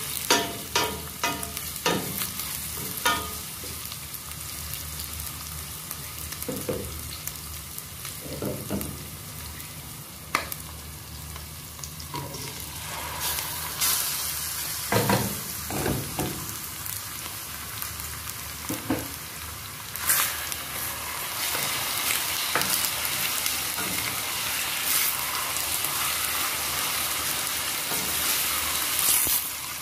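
Sliced red onions sizzling in oil in a stainless steel pot, stirred with a wooden spoon that knocks against the pot. About halfway through, raw chicken pieces go in and the sizzling gets louder, with more stirring.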